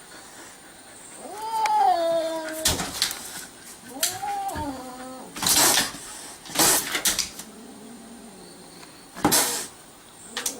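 A cat yowling twice, each drawn-out call rising and then falling in pitch, followed by several short, sharp noisy bursts.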